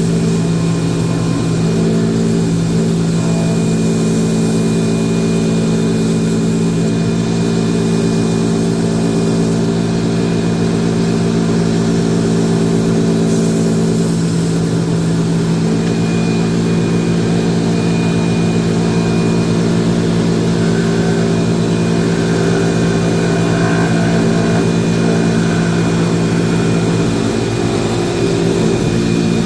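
Electric motor of a drill press converted into a lathe, running at a steady speed with a steady hum.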